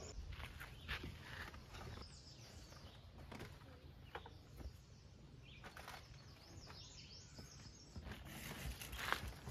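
Faint songbird chirps over quiet outdoor ambience, with light knocks and rustles of gear being shifted in an SUV's cargo area and a sharper knock near the end.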